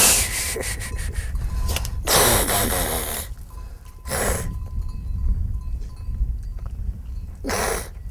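A goatherd's short hissing 'shh' calls driving goats, four bursts, the longest about two seconds in, some with a wavering voiced edge. A steady low rumble of wind on the microphone runs beneath.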